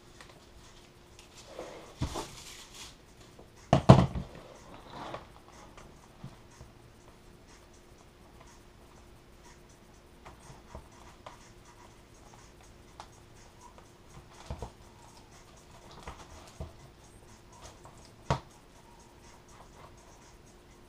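Hands working on a foam model-plane wing: scattered knocks, clicks and scratching as tools and parts are handled and set down on a cutting mat. The loudest is a cluster of thumps about four seconds in, with a faint steady hum underneath.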